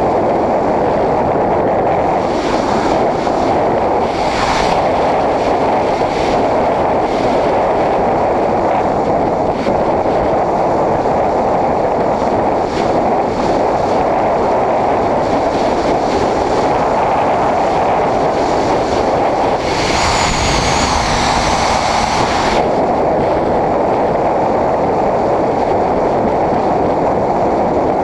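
Steady wind rush over a GoPro's microphone on a Honda CBR600RR motorcycle riding at road speed. The sound grows brighter and hissier for a couple of seconds about two-thirds of the way through.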